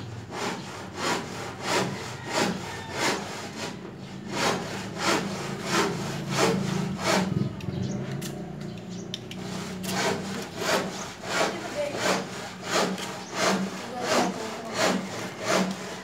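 A blade sawing back and forth through a thick flower stem in steady strokes, about one and a half a second, over a low steady hum.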